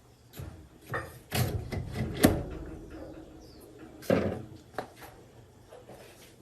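Irregular knocks and clunks from hands-on work on a diesel engine: about half a dozen separate hits, the loudest about two seconds in and another strong one about four seconds in.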